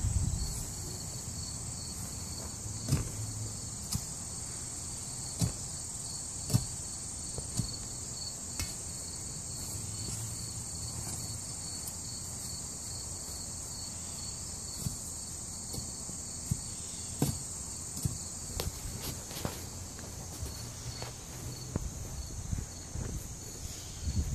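Steady high-pitched insect chorus, with irregular sharp knocks from a steel bar being driven into the soil around the base of a wooden fence post.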